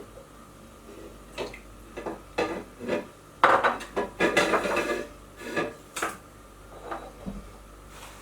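A hand lemon squeezer and a mixing bowl being handled, making a string of irregular clinks, knocks and scrapes. The busiest, loudest stretch comes about three and a half to five seconds in.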